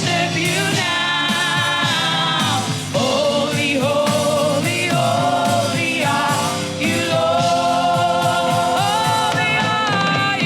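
Gospel worship music: voices singing held notes with vibrato, choir-like, over a band with a steady beat.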